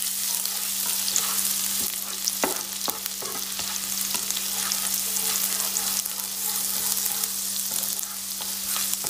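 Crushed ginger, garlic and green chillies sizzling in hot ghee and oil in a pan as a spatula stirs them, with occasional scrapes and taps of the spatula on the pan. The aromatics are being sautéed until their raw smell cooks off.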